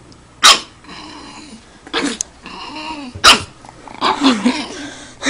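Pug puppy barking: three sharp yaps about a second and a half apart, with quieter calls from the puppy between them.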